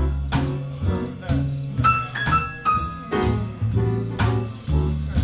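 Live jazz band playing a swinging blues: piano chords struck in sharp, repeated attacks over acoustic bass.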